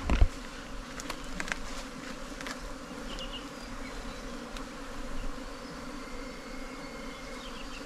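Honeybees buzzing around their dug-open nest in a steady, dense hum, with a few light knocks in the first couple of seconds.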